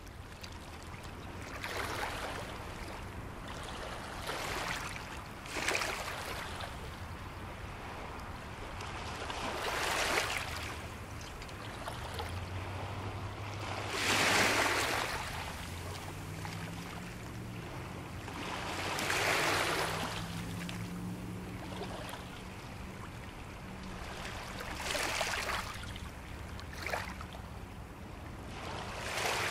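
Small waves washing onto the shore, each one swelling and fading every four or five seconds. A faint low engine drone runs underneath through the middle stretch.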